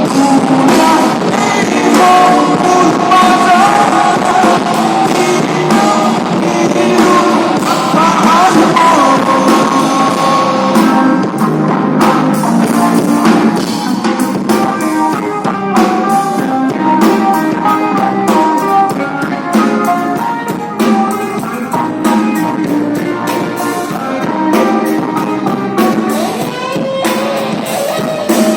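Song with a singing voice, guitar and drum kit, playing continuously.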